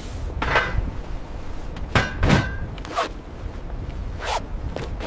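Irregular knocks, scrapes and clatter, one with a short squeak about two seconds in, over a steady low rumble.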